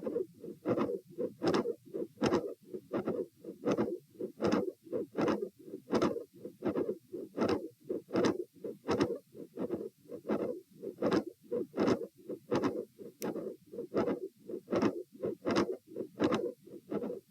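Heartbeat heard through a stethoscope: a steady lub-dub at about 80 beats a minute with the person sitting up. The recorder identifies the beats as carrying a mid-systolic click and a split second heart sound.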